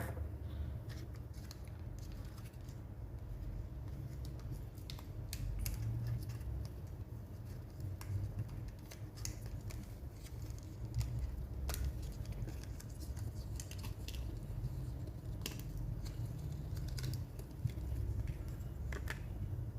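Scattered small clicks and light scrapes of hands fitting a RAM module into a laptop's memory slot and handling the opened laptop, over a steady low hum.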